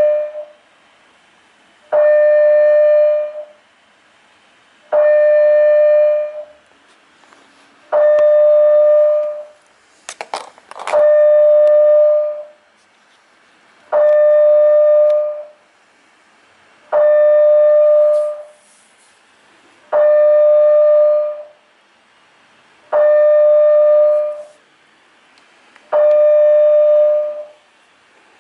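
Building fire alarm sounding: a loud, steady tone pulses on for about a second and a half, once every three seconds. A brief clatter of clicks comes about ten seconds in.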